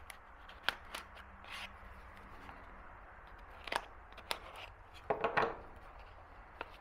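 Folding knife blade cutting along the taped seam of a small cardboard box: a scatter of short scrapes and clicks. About five seconds in comes a louder cluster of knocks and rubbing as the knife is put down on the wooden bench and the box is handled.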